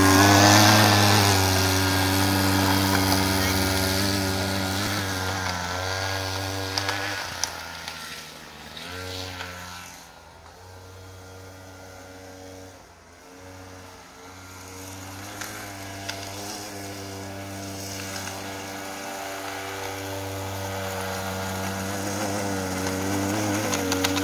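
Small petrol engine of a motorized snow scooter running, loud close by, fading as the scooter pulls away and growing louder again as it comes back.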